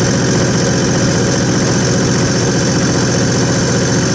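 Common-rail test bench driving a Bosch CP1 high-pressure diesel fuel pump at about 900 rpm while it builds rail pressure: a steady mechanical running sound with a fast, even pulsing.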